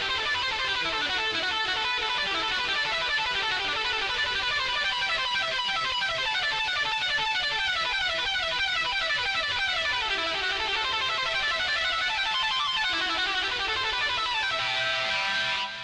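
Instrumental music: a quick run of plucked guitar notes, the song's outro, fading out at the end.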